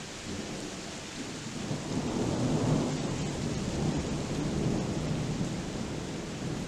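Thunder rumbling over steady rain: a low roll that swells about two seconds in and slowly dies away.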